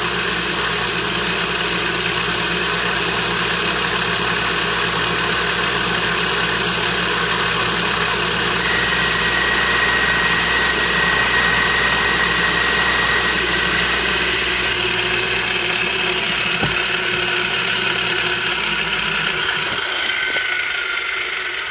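Cylinder boring bar running steadily while its counterbore cutter is hand-fed into the aluminium jet ski cylinder, with a steady high whine from the cut for several seconds midway. The low hum drops away near the end.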